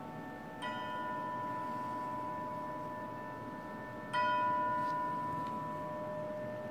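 Orchestral bells, likely tubular bells, struck twice about three and a half seconds apart. Each stroke rings on and fades slowly, and the second is louder.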